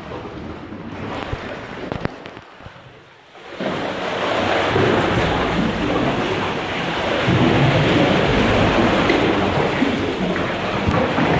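Sea water surging and sloshing inside a rock sea cave: a deep rumble with rushing, splashing water. It dies down about two seconds in, then swells back loud after about three and a half seconds and stays.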